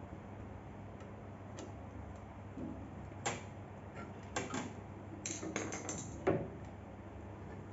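A handful of sharp clicks and knocks, bunched between about three and six and a half seconds in, as parts of a benchtop belt sander are handled and moved by hand.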